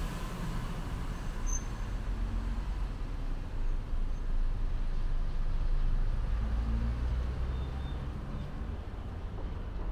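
Steady low rumble of street traffic, swelling for a few seconds in the middle as a vehicle goes by.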